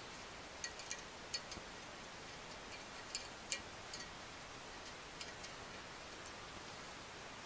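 Faint, irregular small metallic clicks, about ten of them and mostly in the first few seconds, of steel needle rollers being worked by hand into the needle bearing race in the rear A-arm bore of a Polaris Outlaw ATV, over a low hiss.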